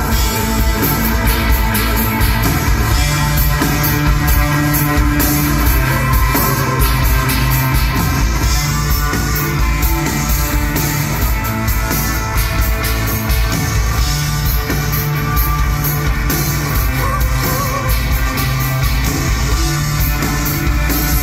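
Live rock band playing at full volume: a male lead singer over drums and bass guitar, heard from close to the stage.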